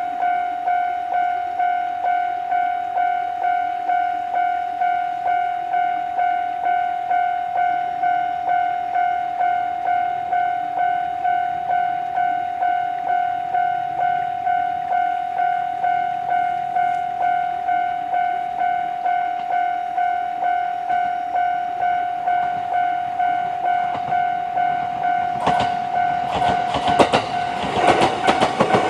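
Japanese railway level-crossing warning bell ringing steadily, a high electronic clang repeating about twice a second. Near the end an EV-E301 series battery-electric train reaches the crossing, and its wheels clatter over the rails beneath the continuing bell.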